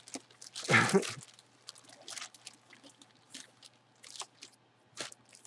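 Handling noise as a jersey and its packaging are moved about: scattered light rustles and small clicks, with one louder bump or rustle about a second in, over a faint steady hum.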